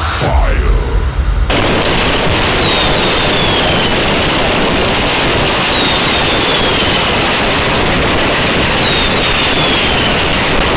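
Fireworks: a bang at the start, then continuous dense crackling, with a descending whistle about every two seconds.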